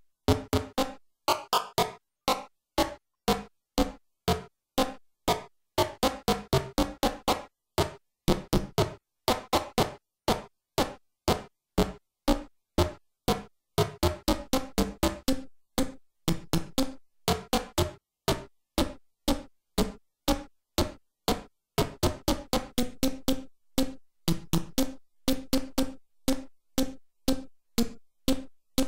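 ymVST chiptune synthesizer plug-in, an emulation of the Atari ST's YM2149 sound chip, playing a fast stream of short, clicky notes, several a second, with a noise burst on each. The pitch pattern of the notes shifts while its arpeggio and length settings are changed, then settles into steadier low notes near the end.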